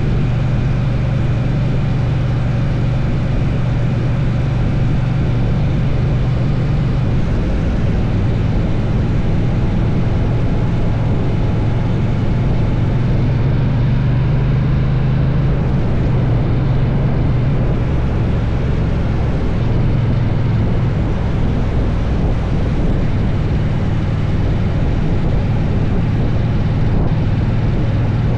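Triumph Bonneville T120's 1200 cc parallel-twin engine running at a steady cruise under way, its low drone holding nearly even throughout.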